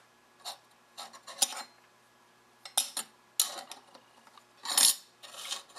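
Metal parts of a T3/T4 turbocharger clinking and scraping as the housing and clamp pieces are handled and lined up by hand. A string of short clinks, the loudest and longest about five seconds in.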